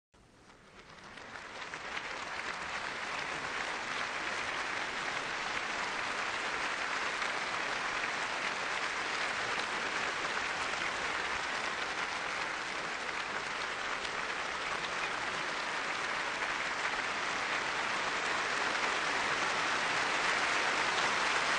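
Theatre audience applauding: a dense, steady clapping that swells in over the first two seconds and holds.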